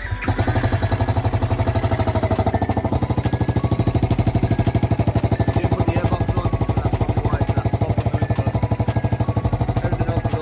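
Gen 1 Yamaha YZF-R125's single-cylinder four-stroke engine running at a steady idle with an even, rapid pulse. The engine has just been rebuilt and is running for the first time since.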